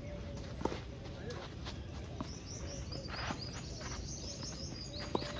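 Tennis ball struck back and forth on a clay court: sharp pops off the racquets, loudest a little under a second in and again near the end, with fainter knocks between. Small birds chirp in a quick high twitter through the second half.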